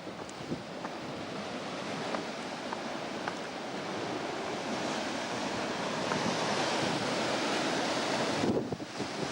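Ocean surf washing in, swelling over several seconds and falling away shortly before the end, with wind buffeting the microphone.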